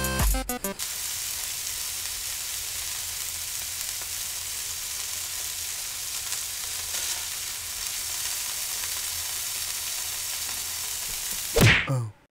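Pancake batter frying in a pan, a steady sizzling hiss that follows a short music sting cut off at the start. A short, louder, voice-like sound comes near the end.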